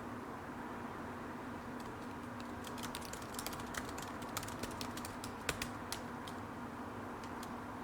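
Typing on a computer keyboard: irregular key clicks, sparse at first, then a quick flurry from about three to five seconds in, thinning out near the end, over a steady background hum.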